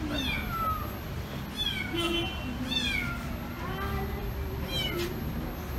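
A kitten meowing: four high-pitched mews, each falling in pitch, over a steady low background rumble.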